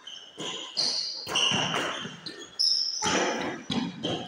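Badminton doubles rally on an indoor court: a string of sharp racket-on-shuttlecock hits and footfalls, with short high-pitched squeaks of court shoes skidding on the floor.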